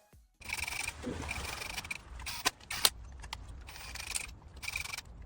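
A few sharp metallic clinks of hand tools on metal parts, the loudest two close together near the middle, over a steady background hiss.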